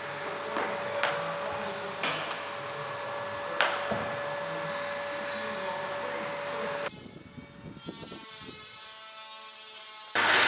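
A workshop machine running with a steady whine and hiss, with a few sharp knocks and clicks over it. At about seven seconds the sound cuts to a quieter stretch, then a loud rush of noise starts near the end.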